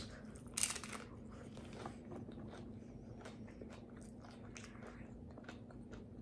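A person bites into a taco with a loud crunch a little after half a second in, then chews with small, quick mouth-smacking clicks.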